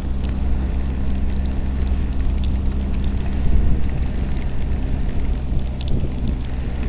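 BMW R1250GS Adventure's boxer-twin engine running steadily at motorway cruising speed under a constant rush of wind, with short sharp ticks of heavy rain hitting the helmet-mounted camera.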